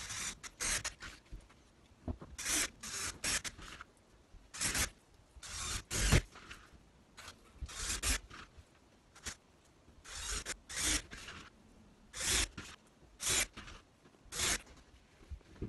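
A string of short, irregular scraping rasps, about a dozen, each under a second long, from work on a thin hardboard back panel as it is fixed onto a wardrobe carcass.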